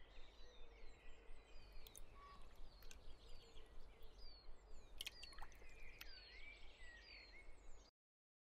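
Faint outdoor nature ambience with small birds chirping repeatedly, quick downward-sliding calls a few times a second over a steady low hiss. It cuts off abruptly just before the end.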